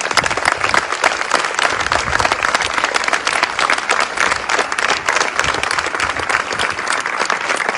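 Crowd applauding steadily: dense, sustained clapping from many hands.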